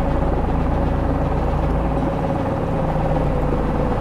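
A boat's motor running steadily while the boat moves along, a constant low rumble with a steady higher tone over it.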